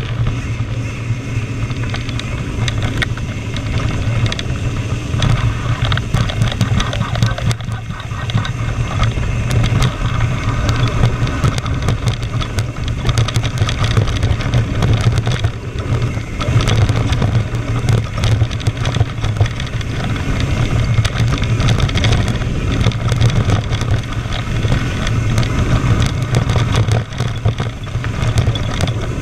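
Wind rushing over the microphone and tyre rumble on a loose dirt-and-gravel trail as a mountain bike descends at speed. Many small knocks and rattles from the bike run through it.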